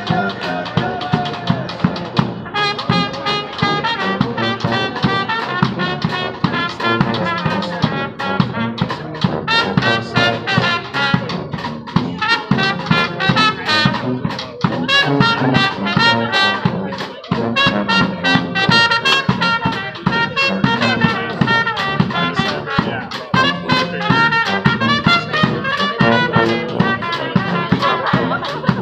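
Small brass band playing live: trumpet and a low brass horn over a big bass drum and a snare drum keeping a steady beat.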